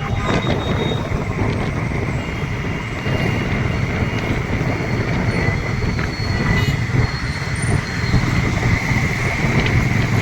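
Two-wheeler engine running steadily while riding, with wind and road noise on the microphone.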